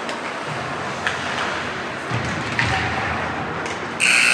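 Gym game noise: crowd chatter with a few short squeaks and soft thuds. About four seconds in, a loud steady scoreboard buzzer cuts in, the horn marking the end of the period.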